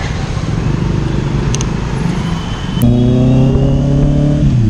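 Petrol-station forecourt noise with vehicles running, then about three seconds in, a Honda CBR650R's inline-four engine running at steady revs on the move through a loud full-system aftermarket exhaust. Its note drops a little near the end.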